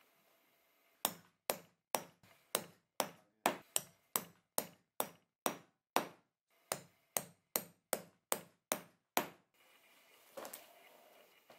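A mallet striking a pricking iron (stitching chisel) to punch stitch holes through a leather tab: about twenty sharp knocks at two to three a second, with a short pause partway, then stopping about two seconds before the end.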